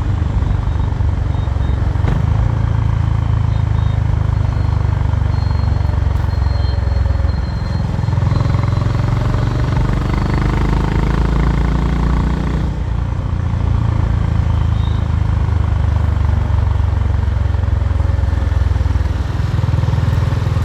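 Honda H'ness CB350's air-cooled single-cylinder engine and exhaust on the move, a steady low exhaust note that briefly drops away about thirteen seconds in before picking up again.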